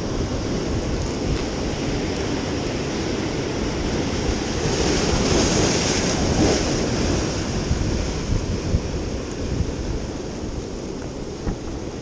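Ocean surf washing and breaking over jetty rocks, swelling louder as a wave comes through about five seconds in, with wind on the microphone.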